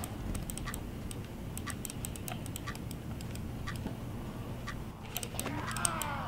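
Light, sharp clicks, about three a second and unevenly spaced, over a steady low hum. Near the end a pitched tone slides downward.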